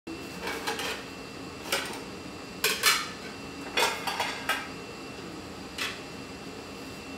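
Ceramic plates and cutlery clinking and clattering as dishes are handled at a plastic dish drying rack: a string of sharp, uneven clinks, the loudest about three seconds in.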